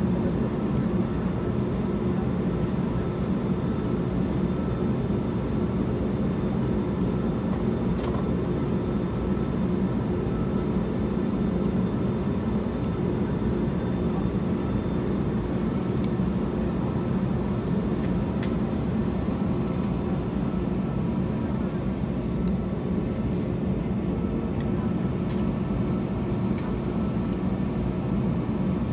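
Steady hum of an Airbus A321neo's Pratt & Whitney PW1100G geared turbofan engines at idle thrust while taxiing, heard from inside the cabin, with a few steady tones riding over a low drone.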